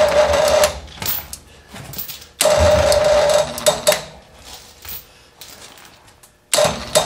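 Electric winch motor whirring in three short runs, each with a steady whine, as it pulls on a chain: one under a second at the start, one of about a second some two and a half seconds in, and a brief one near the end, with a few light knocks between.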